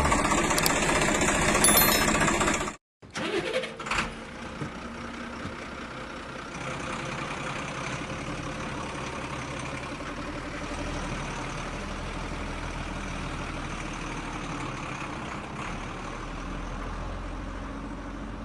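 Background music for about the first three seconds, cutting off abruptly; then, after a few clicks, a steady mechanical running sound of a small engine or motor.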